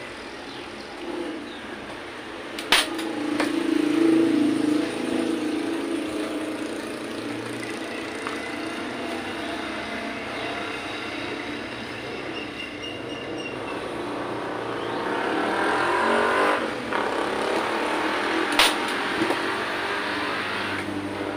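Motor vehicle engine sound that swells twice, with two sharp clicks, one about three seconds in and one near the end.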